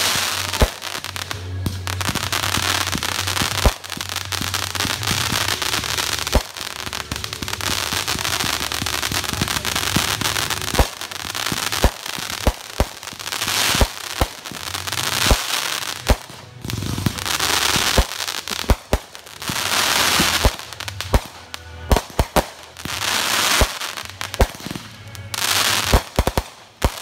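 Consumer aerial fireworks going off: a long run of sharp bangs from launches and bursts. Between them comes crackling sizzle that swells and dies away in several waves.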